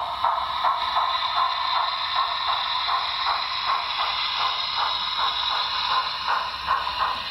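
HO scale model steam locomotive running, with a steady rhythmic chuffing of about three beats a second.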